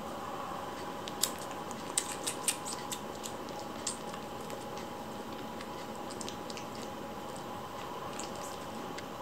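Kittens scuffling and pawing on a fleece blanket: soft rustling, with a scatter of small sharp clicks between about one and four seconds in, over a steady background hiss.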